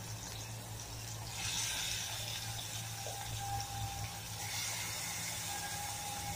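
Bitter gourd pieces frying in hot oil in a kadhai: a soft, steady sizzle that swells about a second and a half in, as more pieces go into the pan, and again near the end.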